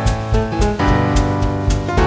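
Upbeat background music: piano or keyboard chords over a steady drum beat.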